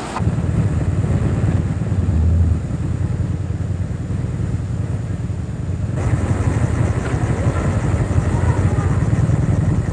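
A vehicle engine running close by, a low, steady, pulsing rumble. About six seconds in the background becomes brighter, with faint voices.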